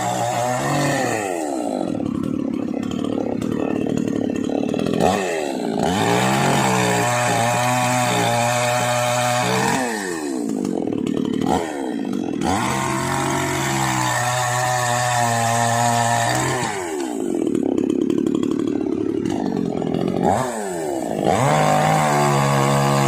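Petrol chainsaw's two-stroke engine running, revved up and let back down about three times, dropping to a lower steady speed between the revs.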